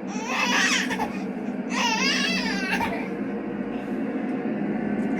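Baby whining as he is put to bed: two short, high-pitched, wavering cries in the first three seconds, sounding like a whining kitty, over a steady low hum.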